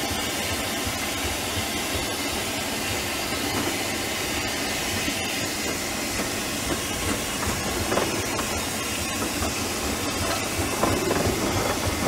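A 1920 Huber steam traction engine running under steam: a steady hiss with light clicks and knocks from its moving parts, growing a little louder near the end.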